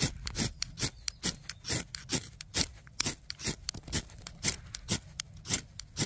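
Ferrocerium rod scraped hard with a metal striker, a quick rasping stroke about two or three times a second, showering sparks into an alcohol stove that has not yet lit.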